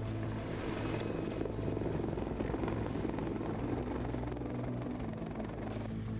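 Helicopter running with a steady drone of rotors and turbine engines.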